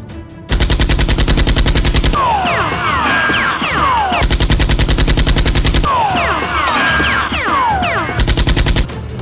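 Automatic gunfire sound effect: three rapid bursts of machine-gun fire, the first two about a second and a half long and the last shorter, with falling whistling tones between the bursts.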